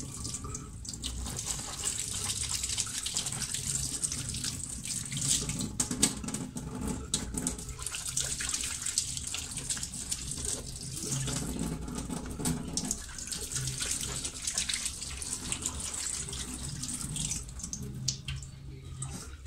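Kitchen tap running into a stainless steel sink as mangoes are rubbed and rinsed under the stream, the water splashing off the fruit and hands with many small irregular splashes.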